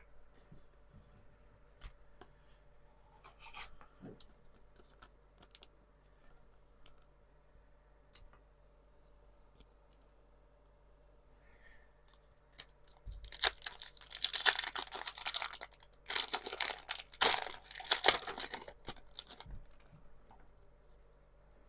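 Pokémon TCG Surging Sparks booster pack being torn open. A few faint clicks and taps of cards being handled come first; about 13 seconds in, the wrapper rips and crinkles loudly for several seconds, in two main spells.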